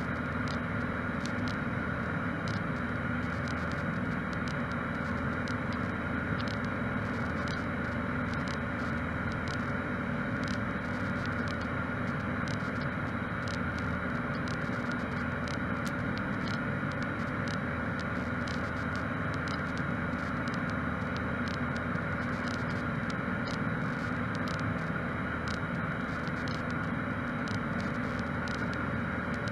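Cessna 152's Lycoming O-235 four-cylinder engine and propeller running steadily in cruise flight, heard inside the cabin.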